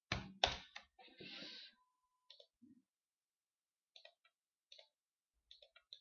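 Faint computer mouse clicks, mostly in quick pairs, spaced a second or so apart as curves are picked one after another. Two louder clicks come right at the start.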